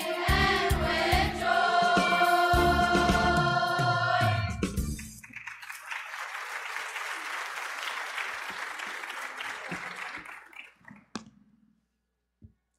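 Middle-school youth choir singing the last held chord of a song with low rhythmic accompaniment, which stops about five seconds in. Audience applause follows for about five seconds and dies away, leaving a single click and a short hush.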